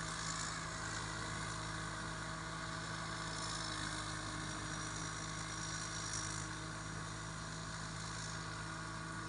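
A rice combine harvester's Hino J08C six-cylinder diesel engine running steadily at an even pitch.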